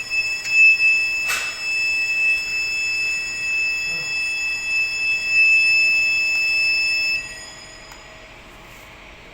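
Fire alarm sounding a steady, high-pitched tone during an alarm test. It cuts off suddenly about seven seconds in, with a sharp click about a second in.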